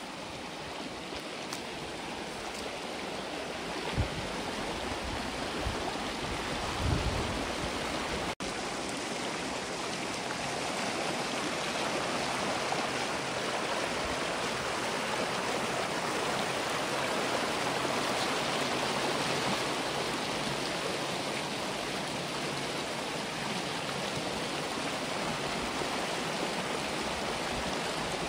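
A creek's water rushing steadily, a little louder after a brief dropout about eight seconds in, with two short low thumps before it.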